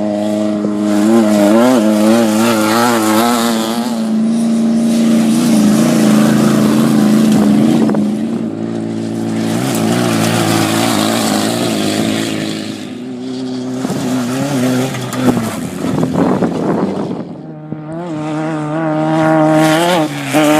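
Off-road race vehicle engines revving as they pass, swelling and fading several times, with the engine pitch wavering rapidly up and down.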